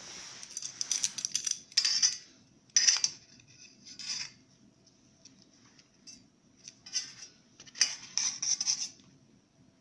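A spoon scraping and knocking against the inside of a small metal camping pot as chicken pieces are moved around, in short irregular bursts with quiet gaps between.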